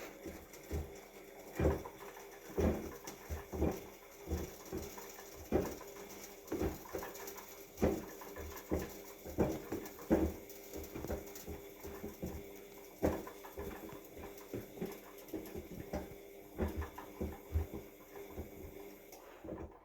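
Washing machine running: a steady motor hum under irregular low thumps, about one or two a second, as the drum works the load.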